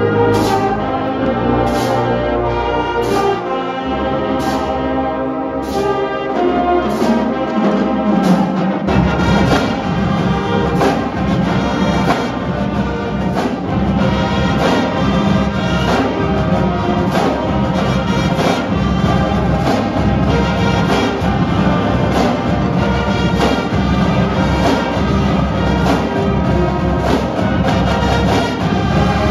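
Large school band of brass, saxophones, flutes and percussion playing together: held brass chords over a steady beat of sharp percussion hits, with the low end filling out and the full band playing denser and driving from about nine seconds in.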